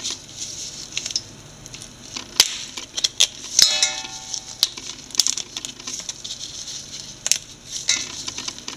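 Blue crab legs being snapped off by gloved hands over a stainless steel pot: irregular cracks and clicks of shell with the rustle of plastic gloves, and a brief ringing tone about three and a half seconds in.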